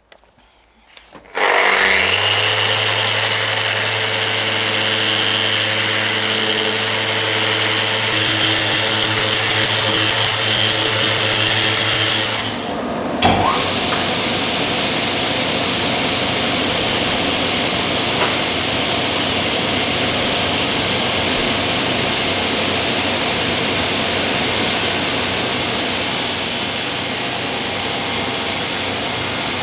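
A power tool starts up about one and a half seconds in and runs steadily with a humming whine. A little under halfway it dips briefly and changes to a harsher, noisier running sound that carries on.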